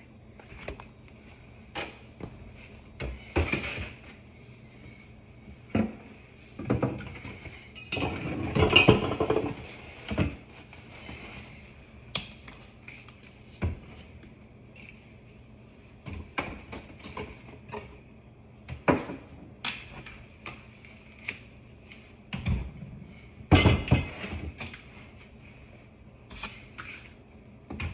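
Scattered knocks, clunks and rattles of household items being set back into a kitchen under-sink cabinet, with louder clatters about a third of the way in and again near the end, over a faint steady high hum.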